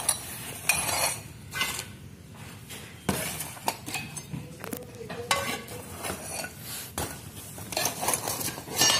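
Pieces of a broken frosted-glass lamp shade clinking and scraping together as they are handled, with irregular rustling of cardboard and plastic wrapping.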